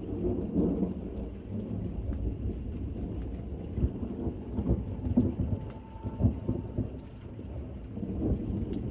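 Thunder rolling in a rainstorm: a low rumble that swells right at the start, breaks into several sharper cracks about halfway through, and swells again near the end, with rain hissing faintly underneath.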